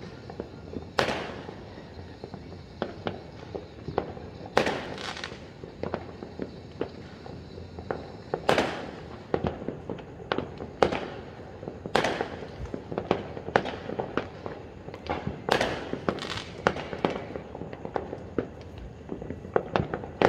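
Fireworks going off: an irregular string of sharp bangs and pops, several a second at times, the loudest ones trailing off briefly after each blast.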